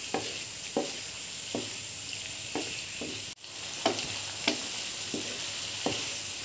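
Clams and tofu sizzling in a non-stick frying pan while a spatula scrapes and tosses them in regular strokes, a little more than one a second. The sound drops out for a moment about three and a half seconds in.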